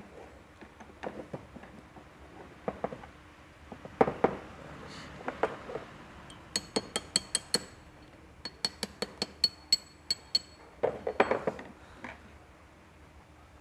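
Metal tools and engine parts clinking and knocking during motorcycle cylinder-head reassembly: scattered knocks, then two quick runs of sharp ringing metallic clicks, about six a second, a few seconds in.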